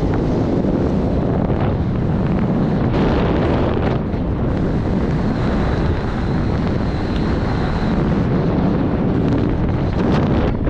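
Caterpillar D2 crawler tractor running steadily, largely buried under heavy wind buffeting on the microphone.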